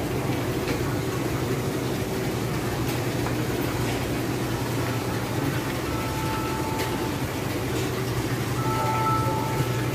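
Steady low machine hum of supermarket refrigerated display counters and air handling. Two faint thin steady tones sound briefly about six seconds in and again near the end.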